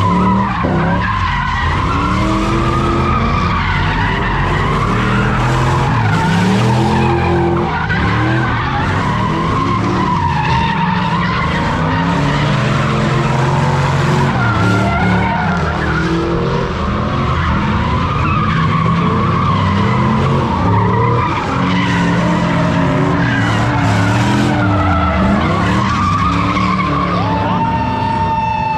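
Car engine revving up and down over and over while its tyres squeal and skid, as a car spins donuts.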